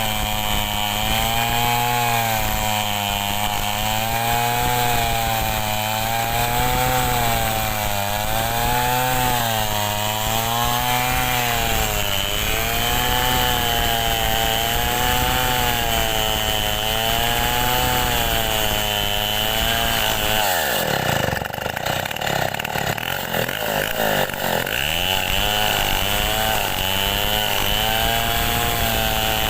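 Homemade Stihl 070 two-stroke chainsaw running under load while ripping mahogany lengthwise, its engine pitch rising and falling in a slow rhythm about every second and a half. About two-thirds of the way through, the revs drop sharply, then climb back up some four seconds later.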